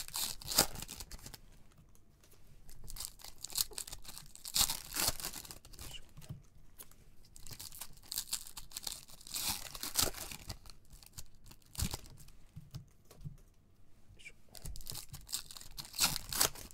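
Foil trading-card pack wrappers being torn open and crinkled by hand, in about four bursts a few seconds apart.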